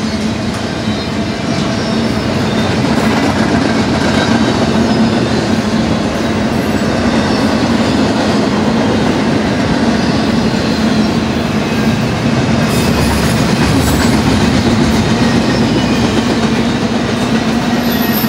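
Double-stack intermodal freight cars rolling past: a loud, steady rumble of steel wheels on the rails, with a low steady hum underneath.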